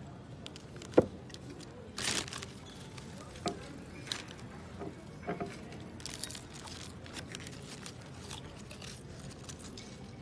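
Children eating potato chips: short bursts of crunching and crinkling, with one sharp knock about a second in.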